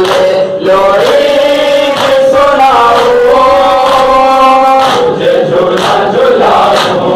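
A crowd of men chanting a Shia mourning nauha in unison, holding long notes. About five seconds in, sharp rhythmic chest-beating slaps (matam) come in, about one and a half a second, under the chanting.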